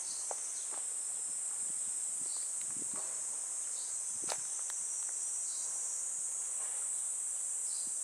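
A steady, high-pitched chorus of summer insects shrilling without a break, with a few soft footsteps and a sharper tap about four seconds in.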